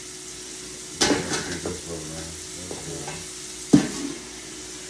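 Metal clanks from a stainless steel pot and steamer insert being handled: a sharp knock about a second in and a louder one near the end, over a steady hiss.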